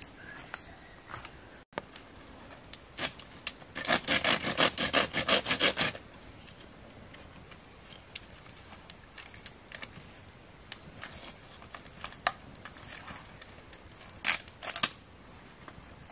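A saw cutting wood in quick back-and-forth strokes, about six a second, for some two seconds a few seconds in. Scattered clicks and knocks come before and after it.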